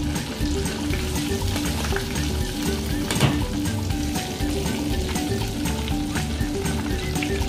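Breaded chicken pieces deep-frying in a pot of hot oil: a steady, dense crackling sizzle. Metal tongs turn and lift the pieces, with one sharp knock about three seconds in.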